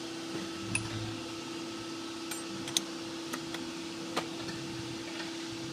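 A handful of sharp clicks and taps as a copper shrinking tip is handled and fitted into a handheld body-repair welding gun, over a steady electrical hum.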